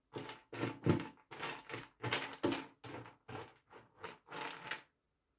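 Cat scratching and digging in cat litter, about ten quick rough strokes over four seconds.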